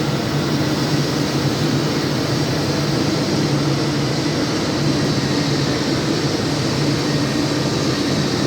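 Flux-cored arc welding on an automatic fillet-welding gantry machine: the arc runs steadily with an even hiss, over a constant low electrical hum.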